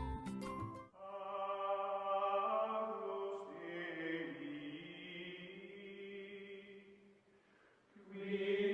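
Outro music: a few bright struck notes, then a chant of long held sung chords that fades away about seven seconds in, with another held chord starting near the end.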